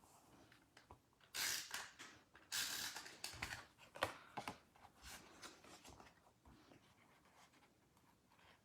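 Paper and card stock being handled on a table: two short sliding, scraping strokes, then a few light taps and clicks.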